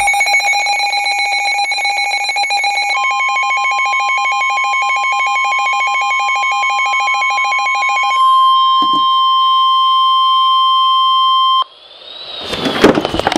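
NOAA Weather Radio alert: a weather radio receiver's rapidly pulsing alarm beep, joined about three seconds in by the steady Warning Alarm Tone that comes before a warning. The beeping stops about eight seconds in, the steady tone cuts off suddenly near the end, and a broadcast voice starts just after.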